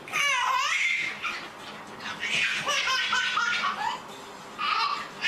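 A baby laughing in three bouts of giggles, with quick stepped 'ha-ha' notes in the middle bout.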